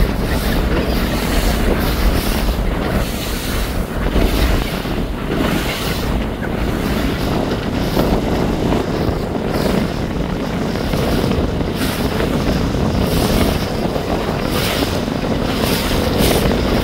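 Wind buffeting the microphone on a moving boat, with water rushing and splashing along the hull; a steady, loud noise that swells and eases in gusts.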